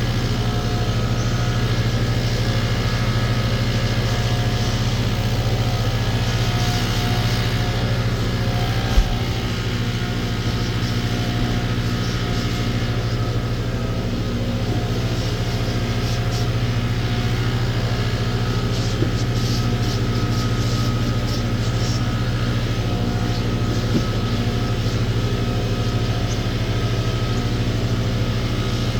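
An engine running steadily at a constant speed, with one short knock about nine seconds in.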